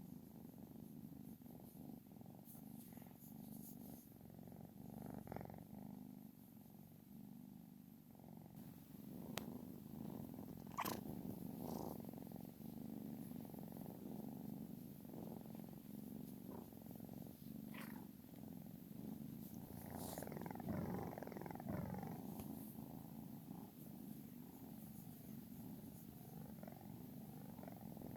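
A cat snoring softly in its sleep: a faint, low, steady rasp that swells and eases a little, with a couple of brief clicks.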